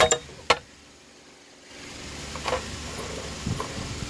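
Hands handling parts of a partly disassembled Makita DPC 7321 concrete saw: three sharp clicks right at the start, then a single light clink about halfway through.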